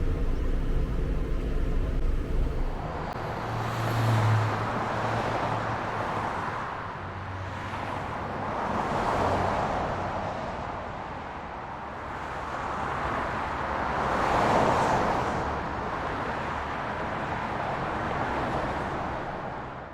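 Street traffic: a vehicle's engine runs low and steady at first, then cars pass one after another about every five seconds, each swelling and fading away.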